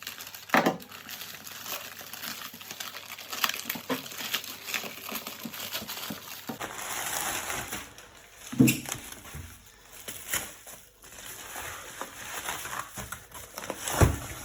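Packaging of a newly arrived keyboard being opened by hand: irregular crinkling and rustling, with a few loud knocks as the package is handled, about half a second in, near the middle and near the end.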